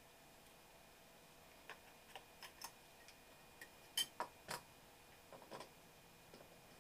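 About a dozen faint, scattered clicks and taps, the loudest a sharp click about four seconds in, from small screws and the memory-bay cover being handled on a PowerBook G4 laptop.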